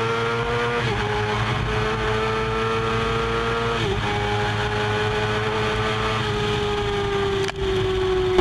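Motorcycle engine pulling hard under throttle, shifting up twice. Each shift cuts the engine note for a moment and it picks up again at a slightly different pitch.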